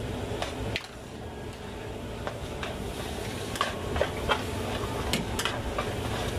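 Metal ladles clinking and scraping against a large wok as a big batch of char kway teow is tossed, with irregular sharp clinks every second or so over a steady background noise.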